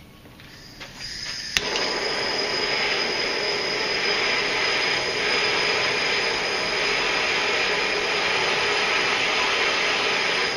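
Handheld propane torch lit to heat a connector contact for soldering: gas hisses faintly, a sharp igniter click comes about a second and a half in, then the flame burns with a steady loud hiss and a faint high whistle.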